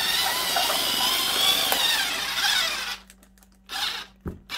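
Cordless rotary power cutter running as it saws through a hard plastic clamshell package, its motor whine wavering as the tough plastic bogs it down. It stops about three seconds in, followed by a few short handling noises and a sharp click.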